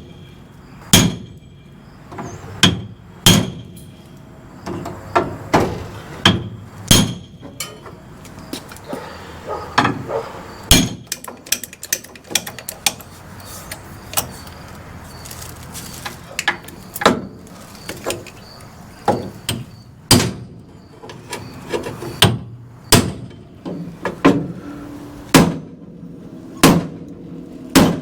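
Hammer blows on the steel front frame of a 1966 Ford Ranchero, flattening a bent section. The strikes come one at a time at an uneven pace, roughly one every second or two, each with a short metallic ring.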